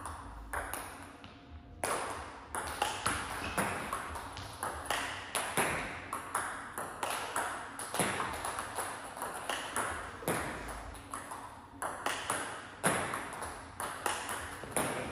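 Table tennis balls striking bat and table in a fast multiball drill: sharp clicks two or three a second, starting after a short lull about two seconds in.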